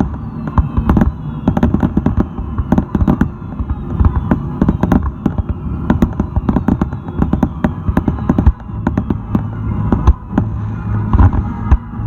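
Fireworks finale barrage: a rapid run of overlapping bangs from shells bursting, with falling whistle tones through it.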